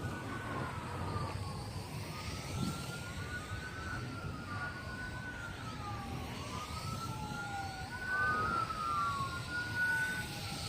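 Emergency vehicle sirens wailing, two tones rising and falling over a couple of seconds each and crossing one another, over the low rumble of wind buffeting the microphone.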